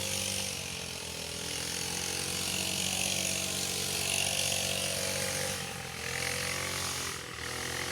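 Engine of a brush cutter (grass cutter) running steadily, its pitch drifting slightly up and down.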